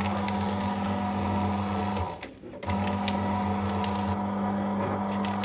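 Paper shredder running as it cuts a strip of thermal-print ECG paper: a steady motor hum with crackling of the paper being cut. It stops about two seconds in and starts again less than a second later.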